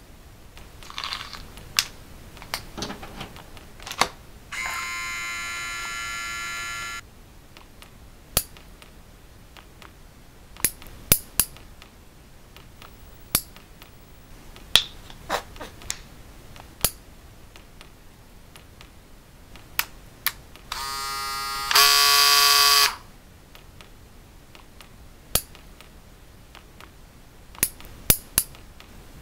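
Scattered sharp clicks and snips of steel nail clippers cutting fingernails, mixed with the plinks of water dripping into a sink. Twice a steady buzzing tone sounds for about two seconds, about five seconds in and again past twenty seconds, the second one louder.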